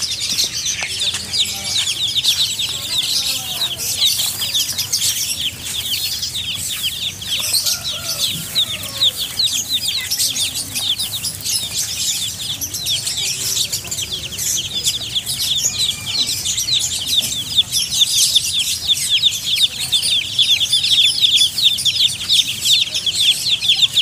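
A boxful of baby chicks peeping: a dense chorus of short, high, falling peeps that overlap without a break, getting somewhat louder near the end.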